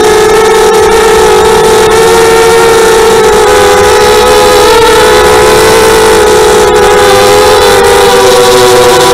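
FPV quadcopter's electric motors and propellers whining steadily, recorded close up by the onboard camera; the pitch dips and recovers briefly about five seconds in as the throttle changes.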